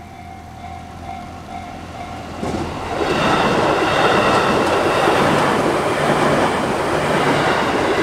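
A Japanese level-crossing bell rings. About two and a half seconds in, a JR Yamatoji Rapid Service electric train arrives and passes over the crossing, and the loud, steady noise of its wheels on the rails takes over.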